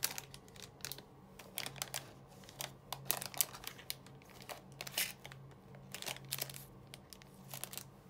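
Clear plastic wrappers of packaged hotel amenities (toothbrushes, razors, towels) crinkling and rustling as fingers handle them, in short irregular crackles.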